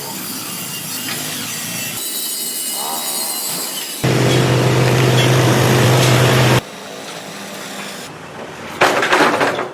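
A string of short workshop sounds from heavy metal repair work, each cut off abruptly after about two seconds. The loudest, from about four to six and a half seconds in, is a steady buzzing power tool at work.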